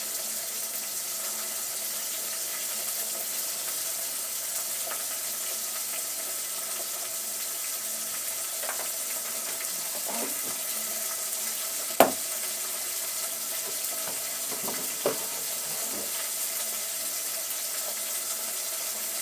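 Sauce sizzling steadily in a cooking pot, with a few knocks against the pot, one loud about twelve seconds in.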